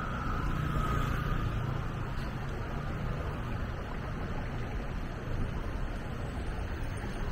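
Steady street traffic noise, with a motor vehicle passing close and its low rumble swelling and fading in the first couple of seconds.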